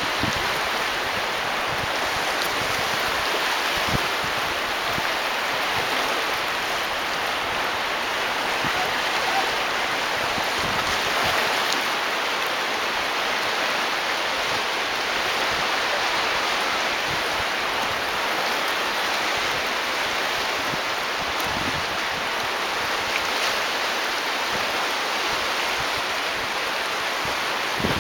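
Steady wash of wind-driven lake chop splashing against the shoreline rocks, an even hiss with no distinct strokes.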